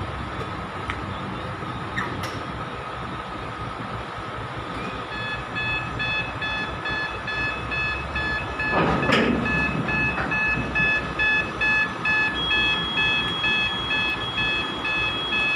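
Heavy truck running and reversing with its steady low engine rumble; about five seconds in a reversing alarm starts, beeping in even repeated pulses. About nine seconds in there is a brief loud rush of noise.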